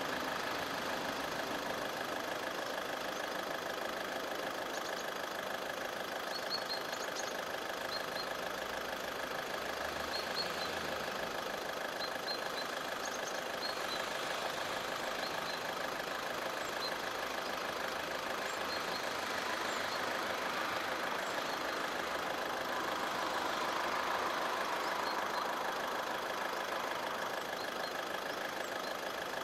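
Level-crossing warning bell (Läutwerk) ringing continuously in rapid, even strokes, signalling that the crossing is closed with the barriers down.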